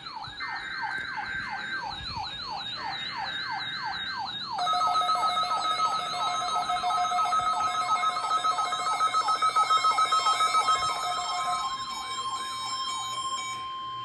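Layered electronic alarm sirens: a falling sweep repeated about three times a second over a high warbling tone. Steady alarm tones join about four and a half seconds in and get louder, and near the end only one steady tone is left.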